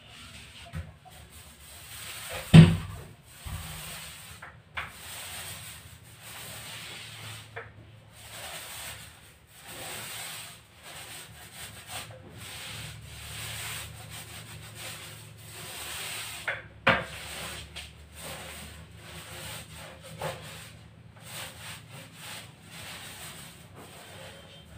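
Paint roller on a long extension pole rolled back and forth over a wall, a continuous run of rubbing strokes. A loud knock near the start and a second, smaller one past the middle.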